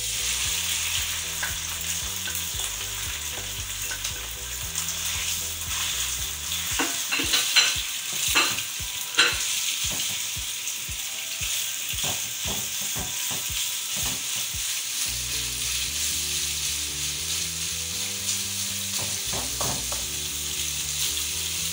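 Beef strips sizzling as they fry in hot oil in a non-stick wok, with a steady hiss. The spatula stirring them knocks and scrapes against the pan in a run of sharp clicks through the middle, the loudest sounds here.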